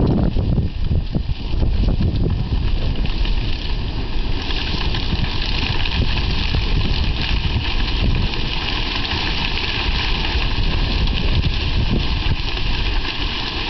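Horse-drawn corn binder running through the corn, a dense steady run of clicks and knocks over a rushing noise, with more hiss from about four seconds in.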